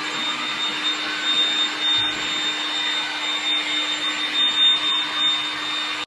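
A machine running steadily: an even whirring rush with a constant low hum and a thin high whine, like a motor-driven blower.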